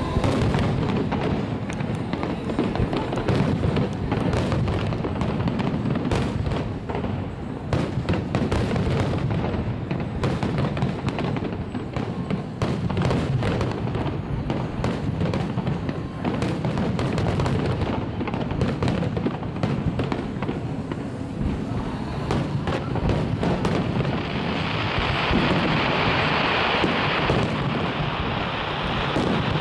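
Fireworks display: a rapid, continuous run of shell bursts, bangs and crackle. A stronger steady hiss comes in near the end.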